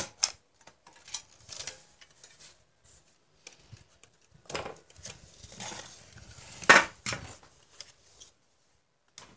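LCD monitor's sheet-metal shield and circuit-board chassis being handled, lifted off the panel and set down on a hard table: irregular clicks, scrapes and metal clatter. The loudest knocks come at the very start and about two-thirds of the way through.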